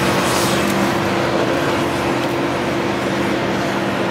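Nissan Frontier pickup's engine running at a steady pitch as it climbs a steep dirt hill, with a hissing rush over it.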